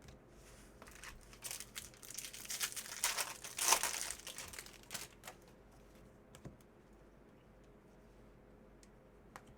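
Crinkling and tearing of a trading-card pack's wrapper as it is opened and handled, loudest about three to four seconds in, followed by a few light clicks.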